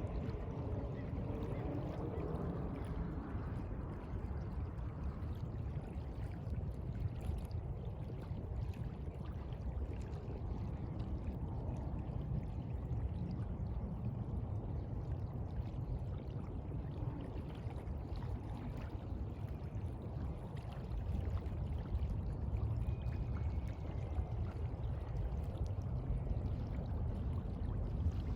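Sea water washing and lapping in a steady rush, with a low rumble underneath.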